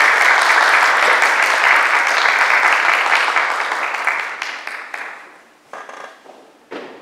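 Applause: loud clapping that dies away over about a second, four to five seconds in. Then two short knocks of footsteps on the stage.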